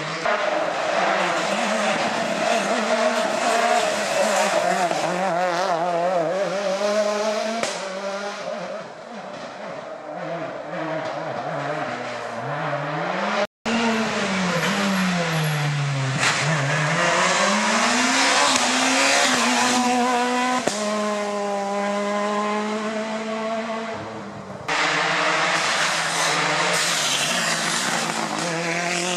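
Rally cars passing one after another at speed, engines revving hard and dropping back through gear changes, their pitch climbing and falling. There are abrupt jumps about halfway and near the end where one pass cuts to the next; the last car is a Ford Fiesta rally car.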